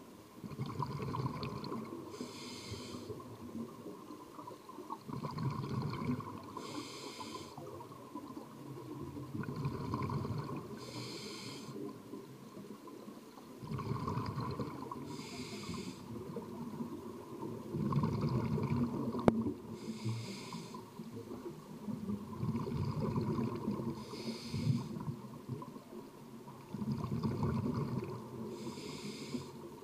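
Scuba diver breathing through a regulator underwater: a longer gurgling rumble of exhaled bubbles, then a short hiss as the demand valve delivers air on the inhale. The cycle repeats steadily, about one breath every four and a half seconds.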